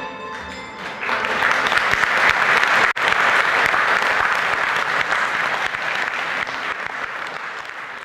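Audience clapping, starting about a second in as the music ends and fading out near the end.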